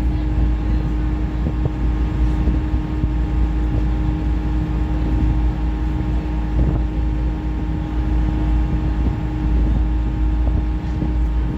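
Passenger ferry's engines droning steadily, a constant hum with a couple of held tones, over a deep rumble of wind on the microphone.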